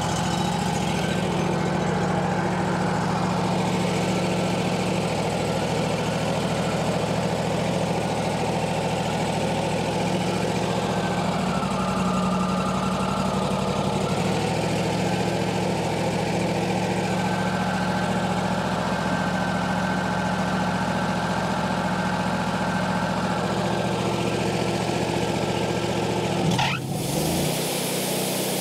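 Wood-Mizer LT40 portable sawmill's engine running steadily at idle just after start-up. Near the end there is a brief sweep in pitch and the engine's note changes.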